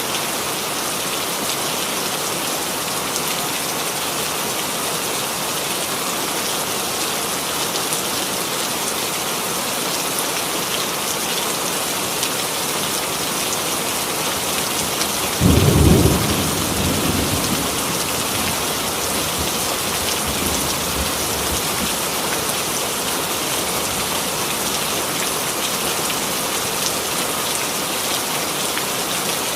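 Steady rain, an even hiss throughout. About halfway through a clap of thunder breaks in, loudest at its start, then rumbles away over several seconds.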